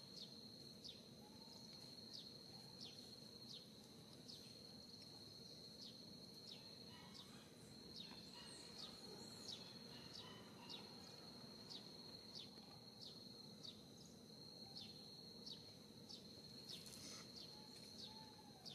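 Faint outdoor ambience: a steady high-pitched insect drone with short falling chirps repeating about once a second over it.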